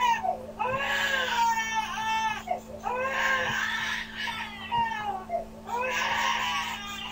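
A baby crying: a string of wails about a second long each, rising and falling in pitch.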